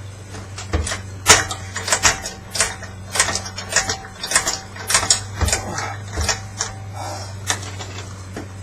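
Metal-on-metal clicks and knocks in quick irregular runs, like hand tools working on a transfer case, over a steady low hum.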